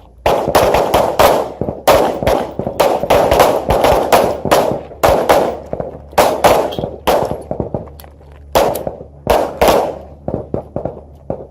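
Several pistols firing at once on a range: dozens of sharp shots overlapping in a ragged volley, thinning out and growing fainter near the end.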